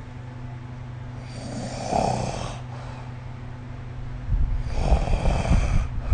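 A person snoring: two rough snores about three seconds apart, over a steady low hum. From about four seconds in, a low crackling rumble joins them.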